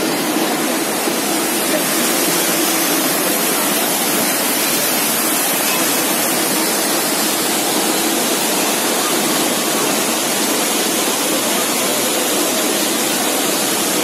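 Water rushing as it cascades over rocks down a waterfall, a steady loud rush with no breaks.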